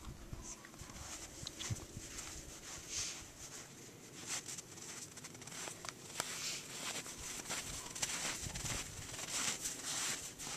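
Footsteps crunching through snow, an uneven run of crisp steps that gets a little busier in the second half.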